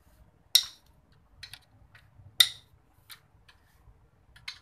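Metal hand tool clinking against a stripped tractor engine block: two sharp metallic clanks about two seconds apart, each ringing briefly, with lighter taps and clicks in between and near the end.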